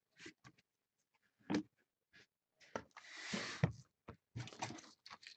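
A cardboard trading-card box being handled and opened on a table: scattered light clicks and knocks, a short rustling scrape or tear of cardboard about three seconds in, then a few more clicks.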